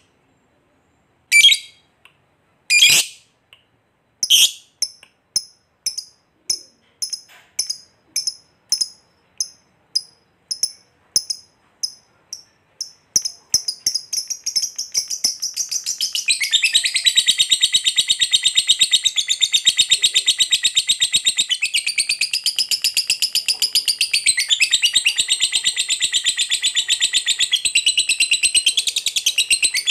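Lovebird giving its long 'ngekek' chattering trill. A few separate shrill chirps come first, then a run of chirps at about two a second that speeds up. About sixteen seconds in, the chirps merge into one continuous rapid, high chatter.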